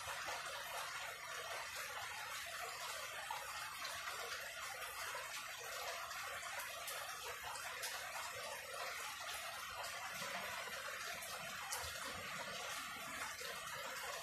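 Steady rain falling, an even hiss with a few sharper drip ticks.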